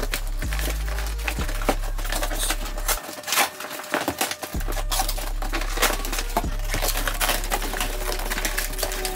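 Background music with a steady bass line, over the rustling, scraping and knocking of a cardboard monitor box being turned over and its flaps and packing pulled open. The bass drops out briefly around the middle.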